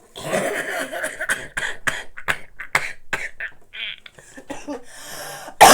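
A person coughing and clearing their throat in a string of short, uneven bursts, with one loud cough near the end.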